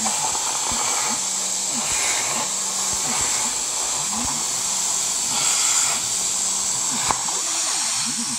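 CNC plasma cutter's torch cutting steel plate: a steady loud hiss of the arc and its air stream, with faint rising and falling whines from the machine's motion underneath. A single sharp click comes about seven seconds in.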